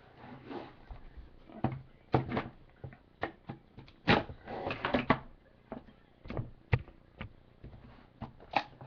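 A sealed trading card box being handled and opened on a table: a string of irregular knocks, clicks and rustles from cardboard and wrapping.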